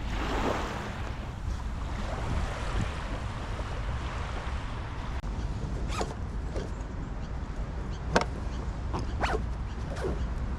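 Frying pan being scrubbed in seawater to clear leftover bits of fish, a rough scraping with several sharp scrapes in the second half. A steady low wind rumble on the microphone underneath.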